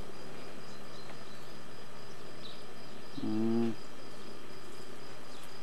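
Crickets chirring steadily in the background, a faint high even tone over a steady hiss. A low voice makes one short sound about three seconds in.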